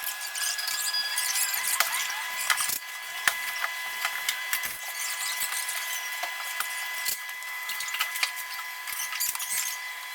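Rapid, irregular clicking and scraping of hand tools and parts being handled during car repair work, thin and high-pitched with faint steady whistling tones underneath.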